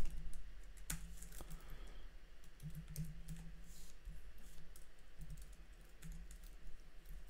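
Typing on a computer keyboard: an irregular run of light key clicks over a steady low hum.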